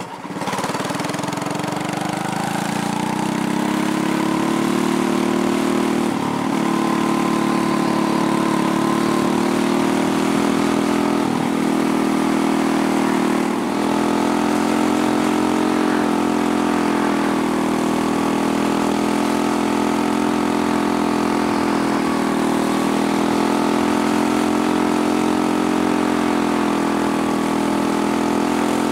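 Briggs & Stratton Animal single-cylinder engine of a quarter midget race car, heard from on board. It picks up speed over the first few seconds, then runs at a near-steady high speed with slight rises and falls and a few brief dips.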